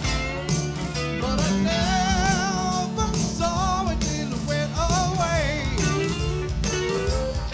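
Live band playing a soft-rock song with guitar and bass guitar over a steady beat. A sustained melody line with vibrato rises above the mix.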